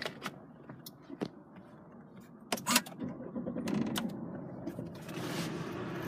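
A few light clicks from the cabin controls. Then, about five seconds in, the Volvo's 2.4 D5 five-cylinder turbo diesel is started with the push button and settles into a steady idle.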